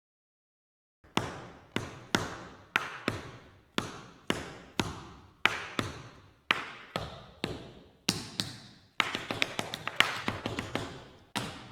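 Tap shoes striking a hard floor in a tap-dance rhythm: single echoing strikes about two a second, breaking into a quicker flurry of taps near the end.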